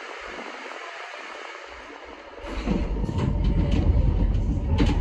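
CTA Pink Line rapid-transit train running, heard from inside the car. About two and a half seconds in it grows much louder, with a heavy rumble and rail clatter.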